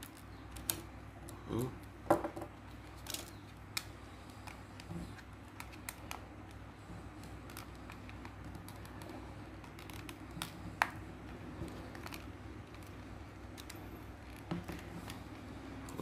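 Scattered light clicks and ticks of a small screwdriver working screws out of a plastic York air-conditioner remote control's casing, with handling of the plastic. The sharpest clicks come about two seconds in and again near eleven seconds.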